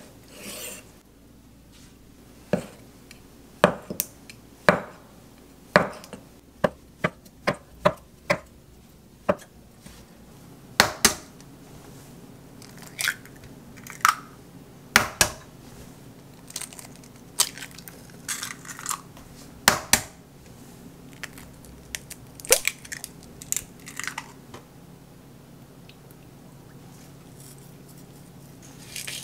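A cleaver cutting through tofu onto a wooden end-grain cutting board, each stroke knocking on the board about once a second. After that come scattered taps and short clicks as eggs are cracked into a wooden bowl.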